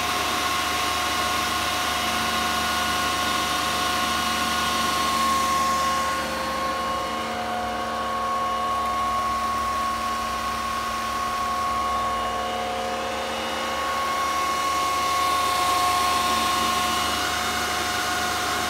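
Antminer S9 Bitcoin miner's cooling fans running at full speed, blowing through a fan shroud into an anemometer: a steady whine with several held tones over a rush of air. It is a little quieter for several seconds in the middle.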